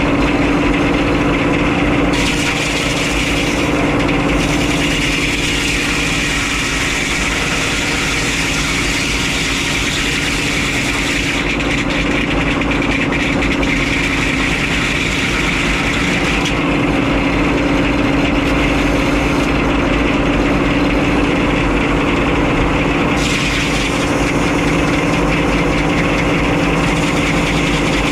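Engine powering a Frick 01-C sawmill running steadily, with a strong constant hum; the higher hiss over it drops away and returns a few times.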